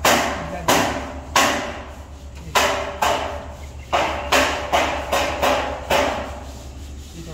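A hammer striking repeatedly on a construction site: about ten sharp blows at an uneven pace of one or two a second, with a short pause about two seconds in.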